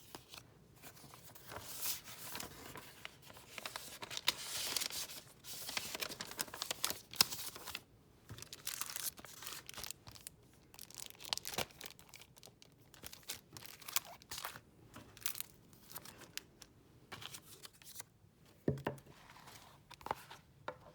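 Packaging being torn open and crinkled by hand: irregular ripping and rustling of paper or plastic wrapping, with a small knock near the end.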